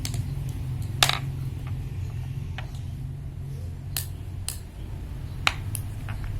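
A screwdriver knocking and clicking on a hard floor as it is batted about in play: a handful of scattered sharp knocks, the loudest about a second in and another about five and a half seconds in, over a steady low hum.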